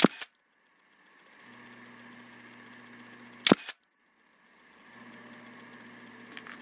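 Two sharp double clicks about three and a half seconds apart, each followed by a moment of dead silence, with a steady low electrical hum between them.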